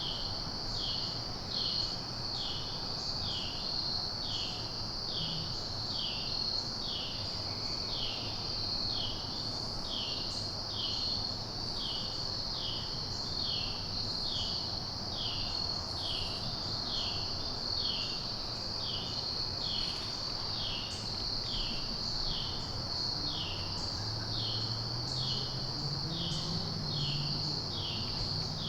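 Crickets trilling steadily, with another insect chirping in short falling notes about once a second. A faint low hum joins near the end.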